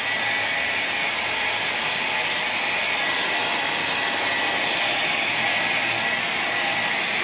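Handheld hair dryer running steadily, blowing over wet spray paint to dry it, with a faint steady high whine.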